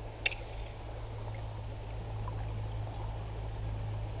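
Shallow stream water flowing steadily around a wading angler, a continuous low rush with a brief sharp click about a quarter of a second in.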